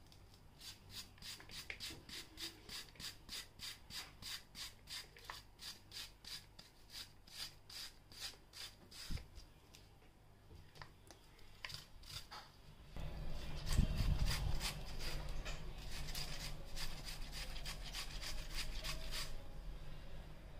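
Peeled potatoes being grated on a metal hand grater: even rasping strokes about two to three a second, a short pause, then faster, louder grating for the second half.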